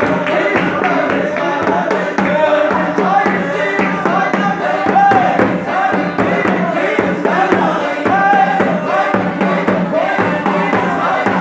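A congregation singing a Mizo spirit-dance song (Thlarau lam zai) together through a PA system, over a steady beat.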